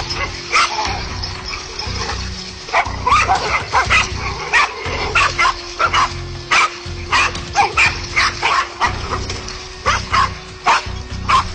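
Several dogs barking and yelping in quick, overlapping barks as they fight a large snake.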